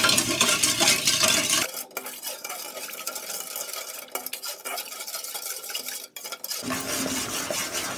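A slotted metal spatula stirring and scraping around an aluminium kadai, with light metal clinks against the pan, as water and dissolved sugar bubble on the heat, cooking down to a sticky syrup. The stirring goes quieter for a few seconds in the middle.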